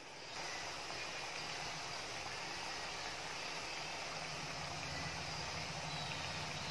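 Pakkavada strips of rice-flour and gram-flour dough deep-frying in hot oil in a wok: a steady sizzle of bubbling oil, starting suddenly just after the start.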